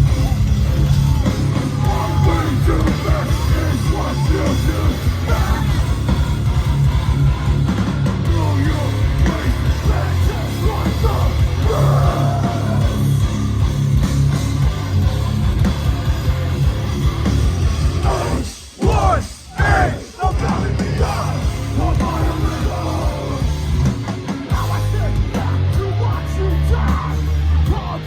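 Live hardcore band playing loud and heavy, with distorted guitars, drums and shouted vocals. About two-thirds of the way through, the band breaks off two or three times in quick stop-start hits, then plays on.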